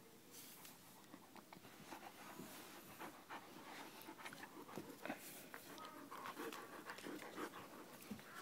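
A 19-week-old German Shepherd puppy panting as it plays tug with a fabric tug toy. Many short rustles and knocks come from the struggle.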